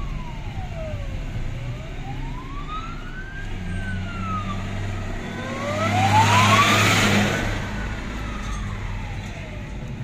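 Fire engine siren wailing in slow rises and falls of pitch as the truck drives past close by, with a surge of its engine and road noise about six seconds in, heard from inside a car.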